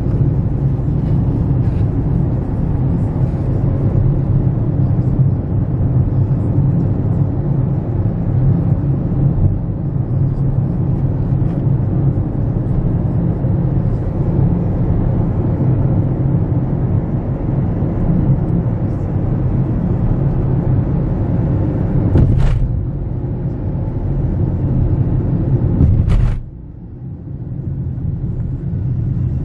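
Road and engine noise of a moving car heard from inside its cabin, a steady low noise. It gets suddenly quieter near the end.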